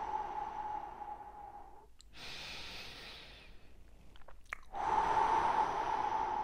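A man taking slow deep breaths: a long breath out through the mouth, a quieter breath in about two seconds in, a few small mouth clicks, then another long breath out starting near the five-second mark.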